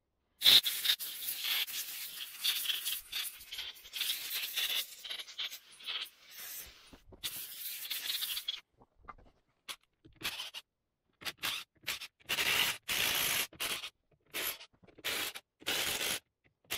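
Compressed-air blow gun blasting air: one long hissing blast of several seconds, then a run of short blasts with pauses between them.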